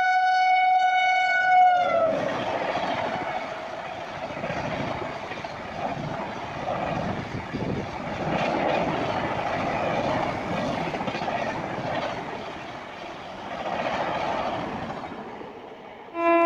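A locomotive horn sounds one long blast, its pitch dropping a little as it ends about two seconds in. Then a passenger train of coaches passes through at speed, a rolling rumble and clatter that swells and fades several times. Near the end a second locomotive horn starts suddenly, lower in pitch.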